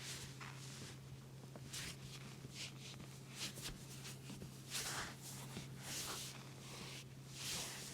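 Hands rubbing and stroking oiled hair and skin during a massage: a string of soft, irregular swishes, over a steady low hum.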